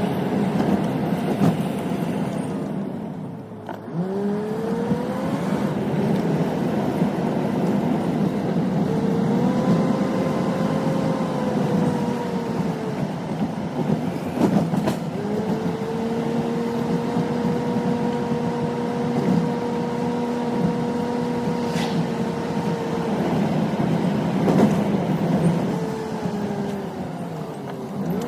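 Pickup truck engine running while driving. Its pitch drops about three seconds in and climbs again as it speeds back up. It then holds steady for a long stretch, and falls and rises once more near the end.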